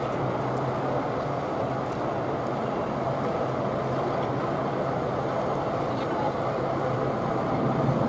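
Steady mechanical hum and dense noise of a large ship passing close by, with a low even drone underneath, sped up to four times normal speed.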